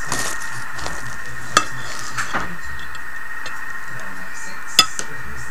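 Kitchen knife slicing through a baked Leberkäse's crust, with two sharp clicks as the blade strikes the ceramic plate, about a second and a half in and near the end.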